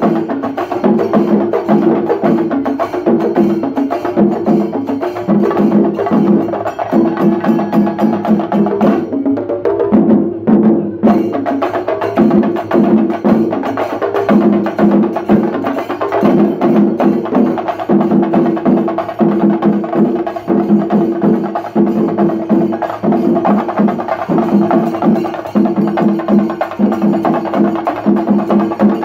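A Shinkari melam ensemble of chendas beaten with sticks, playing a loud, fast, driving rhythm. The brighter top of the sound briefly drops away about ten seconds in, then the full sound returns.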